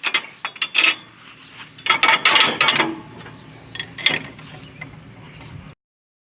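Metal parts clanking and scraping in several clusters of sharp knocks, the loudest and busiest about two seconds in, with a last knock about four seconds in. The sound cuts off suddenly near the end.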